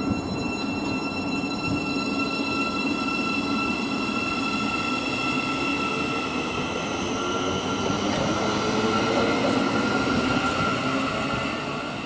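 Thameslink Class 700 electric multiple unit moving along the platform: wheels rumbling on the rails under a steady whine of several tones from its traction motors. The whine creeps slightly up in pitch in the second half, the sound grows louder, then it eases off near the end.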